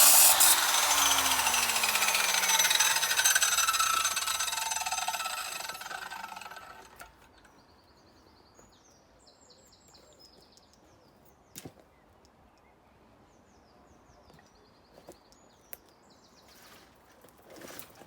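Disc-cutting power tool switched off and winding down: its whine falls steadily in pitch and fades out over about six seconds. After that, faint bird chirps and a single sharp click about halfway through.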